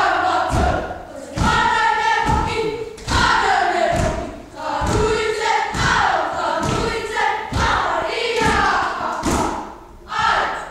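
A group of boys performing a haka: many voices chanting and shouting together in unison, in short phrases that fall in pitch. Heavy thumps about twice a second come from stamping feet and slapping hands on the body.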